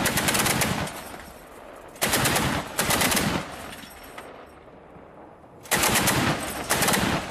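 Truck-mounted anti-aircraft gun firing at an aircraft in three bursts of rapid shots, each just over a second long, with the sound dying away between bursts.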